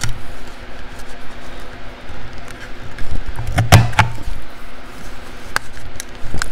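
Handheld paper corner-rounder punch clunking as it is pressed down through a small cardstock strip, with light paper handling between presses; the loudest press comes about three and a half seconds in, another near the end.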